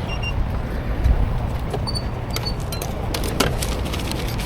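Steady low rumble of road traffic, with a few light clicks and two short high electronic beeps.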